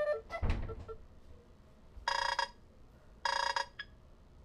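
Nothing Phone 2 ringtone previews playing from the phone's speaker. A melody of short electronic beeps fades out in the first second, with a low thump about half a second in. Later two short buzzy electronic tones come about a second apart, with a brief blip after the second.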